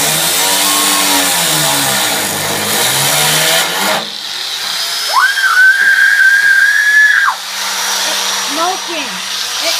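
Power tool cutting into the lawn mower's metal and throwing sparks: a loud grinding hiss that cuts off suddenly about four seconds in. A high whine then rises, holds steady for about two seconds and drops away.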